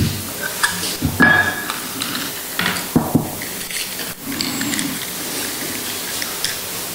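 Communion hosts and small metal altar vessels being handled close to a microphone: scattered light clicks and clinks over a steady hiss.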